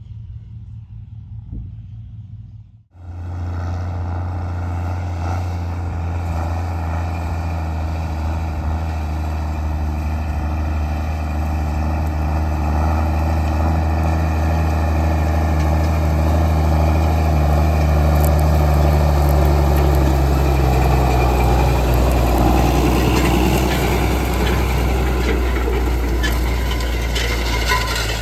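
Large diesel engine of harvest machinery running steadily under load. Its note sinks slightly past the middle as the sound grows a little louder.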